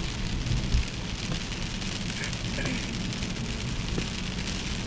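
Heavy tropical rain falling steadily, an even hiss, with a low rumble underneath that is strongest in the first second.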